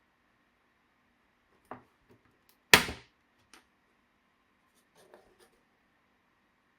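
Laptop parts and small tools being handled on a work surface: a few scattered sharp clicks and one louder knock about three seconds in.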